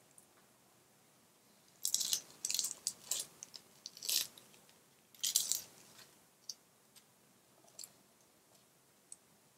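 Dry, papery onion skin crackling as it is peeled off by hand, in several short crackles between about two and six seconds in, then a few faint ticks.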